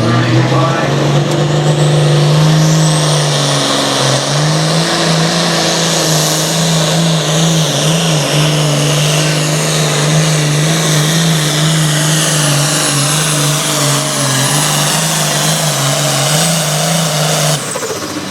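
Super farm pulling tractor's turbocharged diesel engine running loud at high, fairly steady revs, with a high turbo whine that rises a couple of seconds in. The sound stops abruptly near the end.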